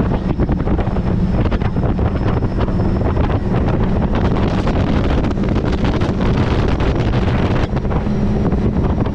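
Wind buffeting the microphone over the steady drone of a twin-turbo big-block Chevy ski boat underway, with water rushing past the hull.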